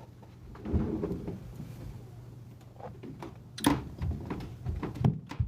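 Light knocks and clicks: a short low rumble about a second in, then a sharp click and a few soft knocks.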